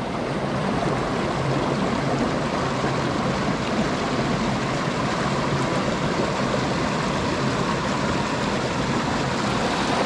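Shallow mountain stream running over rocks and stones: a steady, even rush of water.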